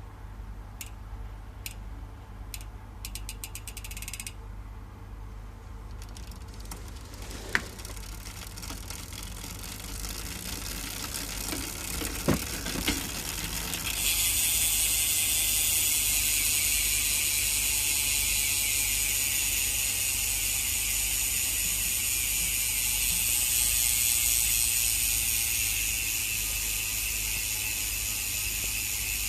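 Sagmit bicycle hub's freehub pawls clicking in its stock form as the wheel freewheels. It starts with a few slow single clicks that speed up, then turns into a fast, steady high-pitched buzz about halfway through as the wheel spins quickly. A few knocks come shortly before the buzz.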